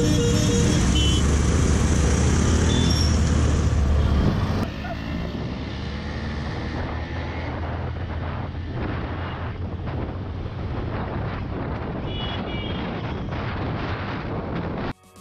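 Motorcycle riding in traffic: the engine runs with wind rushing over the microphone. It is loudest for the first four seconds or so as the bike pulls away, then settles to a steadier, quieter cruise.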